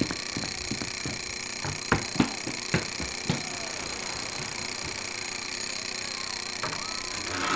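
A few sharp knocks or clicks, four of them spaced over the second to fourth seconds, over a steady hiss, with a faint creak near the end.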